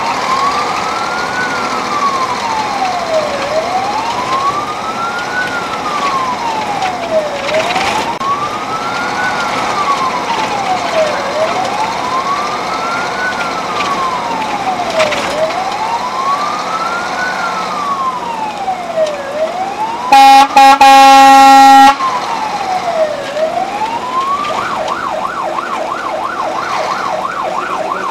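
Fire engine siren wailing slowly up and down, heard from inside the cab while the engine drives. About twenty seconds in, a very loud two-second horn blast cuts over it. After that the siren switches to a fast warble of about four cycles a second.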